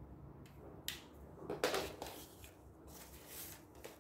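Paper cut-outs rustling and sliding on a table as they are handled, loudest about a second and a half in, with a few short clicks and taps.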